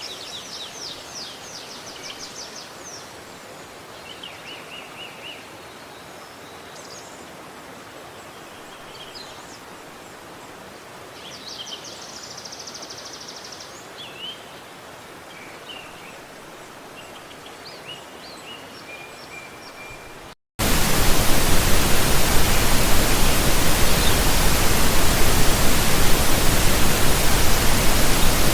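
Small birds chirping and trilling in short calls over a faint background hiss. About twenty seconds in the sound cuts off for an instant and is replaced abruptly by a much louder, even rushing hiss of water.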